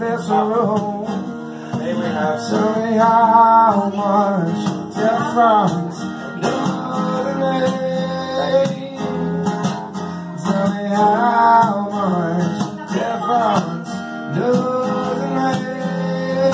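Acoustic guitar played live, with a man singing phrases over it.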